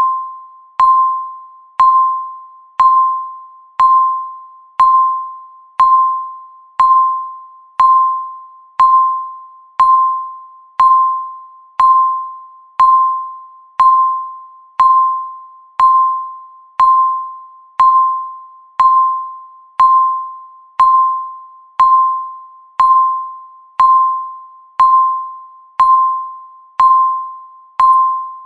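Countdown timer's electronic beep sounding once every second, each beep a single pitch with a sharp start that fades away before the next.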